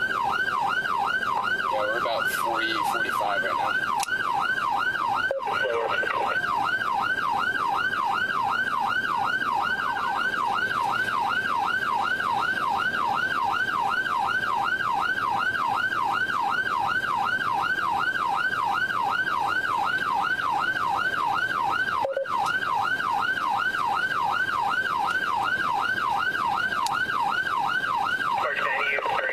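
Police car's electronic siren on yelp, heard from inside the pursuing cruiser: a rapid rising-and-falling wail repeating about three times a second. Near the end it switches to a different, faster tone.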